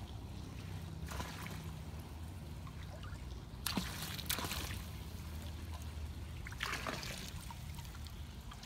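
Swimming-pool water trickling and lapping around a Great Dane standing in it, with a few brief splashes about halfway through and again later. A low steady hum runs underneath.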